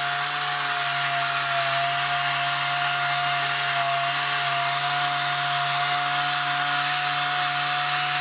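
Foamtec pneumatic polishing tool running steadily, its pad scrubbing a wetted metal chamber door panel: a steady whine over a hiss and a low hum.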